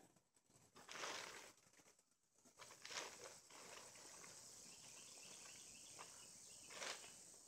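Faint rustling and crinkling of a plastic tarp being pulled over stacked hay bales. There are a few separate rustles, then a steadier crackling rustle for a few seconds, and one more rustle near the end.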